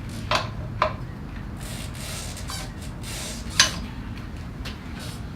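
A few sharp metallic clinks and clicks of hand tools and parts being handled during work on a motorcycle handlebar, the loudest about three and a half seconds in, over a steady low hum.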